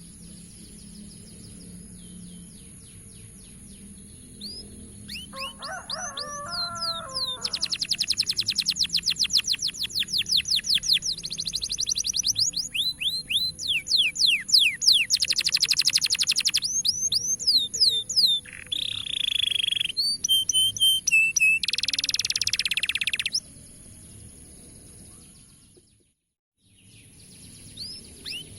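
Domestic canary singing a fast, dense song of rapid trills and rolls. It starts a few seconds in and breaks off suddenly after about twenty seconds. A steady high-pitched whine runs beneath it, and a brief dropout comes before more song near the end.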